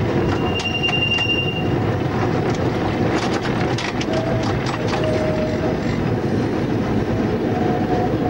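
Vicinal tram running along its line, heard from the driver's cab: a steady rumble of wheels and running gear. A brief high wheel squeal comes about a second in, and a cluster of sharp clicks and knocks follows in the middle.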